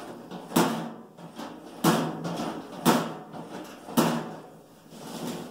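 Galvanized sheet-metal treadle feeder clanking four times, about a second apart, each a sharp metal bang with a short ring, as its door is worked open and dropped shut.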